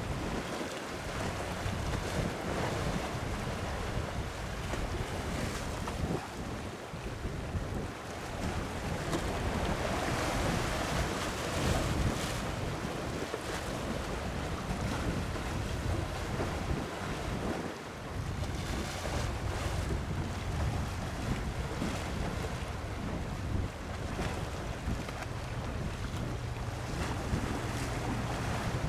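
Wind buffeting the microphone over the wash of sea waves: a steady rushing noise that swells in gusts, strongest a little before the middle.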